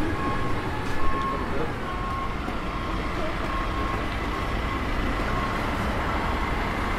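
Refuse collection truck's diesel engine running as it passes close by, over a steady traffic rumble. A short high beep repeats about once a second.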